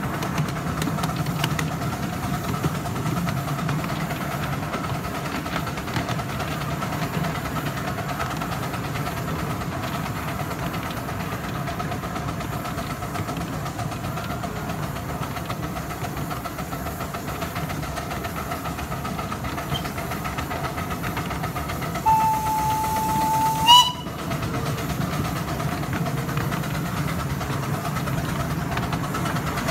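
Miniature 7¼-inch gauge steam train running steadily along the track. Near the end its whistle blows one held note for about two seconds, rising in pitch just before it cuts off abruptly.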